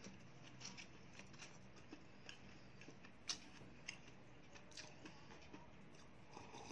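Near silence: faint scattered clicks of someone eating, chewing and handling a plastic cup, over a low steady hum.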